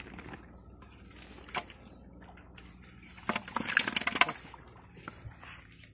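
A live catla being lifted by hand out of a metal pot: a few single knocks, then about a second of clattering, slapping noise a little past three seconds in as the fish comes out.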